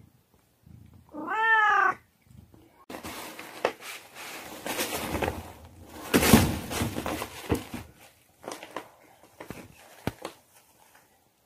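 A cat in labour gives one loud meow that rises and falls in pitch. It is followed by several seconds of rustling and scuffling in the paper and plastic bedding of the box, loudest about six seconds in, then a few scattered clicks.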